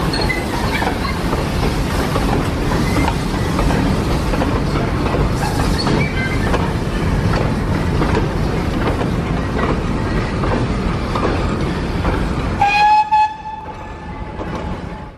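Steam-hauled goods train of four-wheeled wagons and vans rolling past close by, with a dense rattling clatter of wheels and running gear. Near the end a whistle sounds, loud for half a second and then held more faintly.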